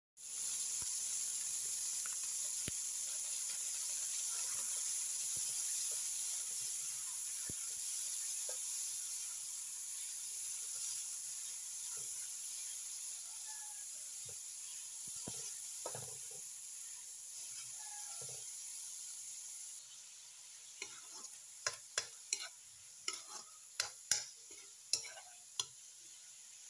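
Diced meat sizzling in hot oil in a nonstick wok as it is stirred with a spatula: a steady frying hiss that drops off about two-thirds of the way through. Near the end a metal spatula scrapes and knocks against the wok again and again while scooping up the meat.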